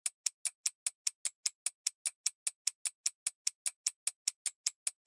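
Ticking timer sound effect: short, sharp, perfectly even ticks at about six a second.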